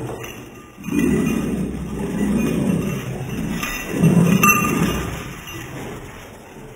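Dogs growling as they fight over a toy, slowed down so the growls come out deep and drawn out, in two or three swells that die away near the end. A couple of short metallic clinks sound about halfway through.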